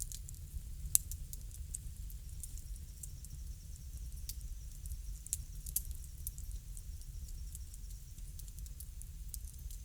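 Wood fire crackling: steady small pops and snaps over a low rumble of the flames, with one sharp, louder pop about a second in.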